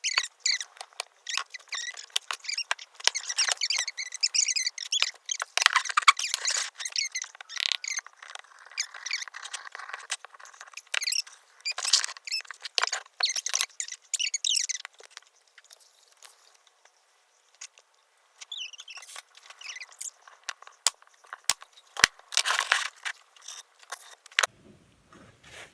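Scratchy, squeaky rubbing in uneven strokes: a scrap of paper bag worked over the glue on the back of the piece to smooth it flush. It pauses for a few seconds past the middle, resumes, and stops shortly before the end.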